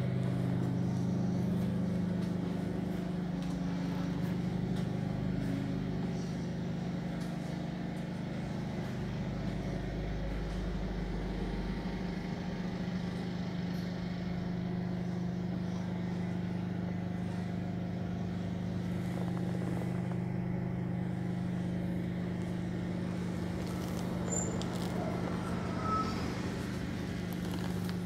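Steady low hum of a city bus running, heard from inside its passenger cabin, with a few faint rattles near the end.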